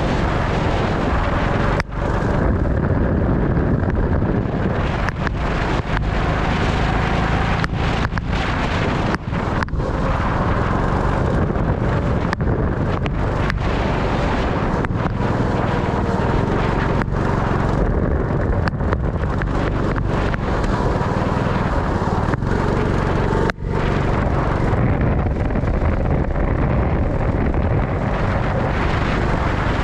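Sprint kart engine running on track, its pitch rising and falling slightly with the throttle, under heavy wind buffeting on the onboard microphone. The sound dips for an instant a few times.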